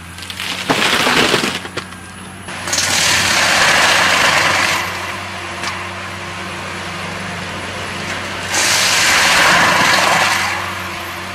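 A diesel machine runs steadily while wood is crushed and splintered in three loud bursts of cracking and breaking, the first short and choppy, the next two each lasting about two seconds.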